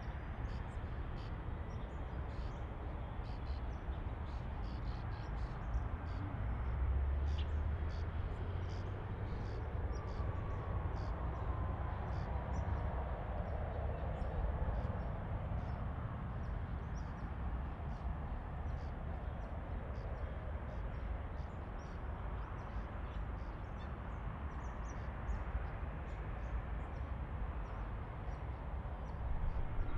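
Low, steady rumble of an Embraer E190's jet engines at taxi power, swelling a little about a quarter of the way in. Scattered high chirps from insects and birds in the grass sound over it.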